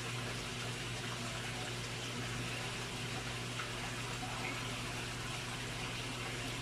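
Steady running water in a fish pond, over a steady low hum.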